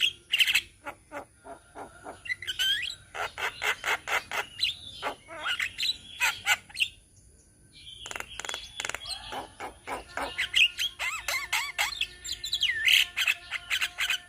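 Several Javan mynas calling together in a dense mix of rapid clicks, harsh squawks and gliding, chattering whistles, with a short lull about seven seconds in.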